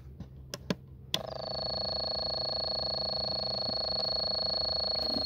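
Handheld electronic noise synthesizer: a few clicks, then about a second in a steady buzzing drone starts, with a high thin tone held above it.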